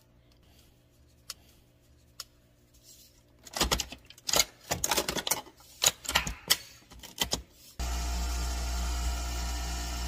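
A series of clicks and knocks as the head of a Nespresso Vertuo coffee machine is handled and closed, then, about eight seconds in, the machine starts brewing with a sudden steady mechanical hum.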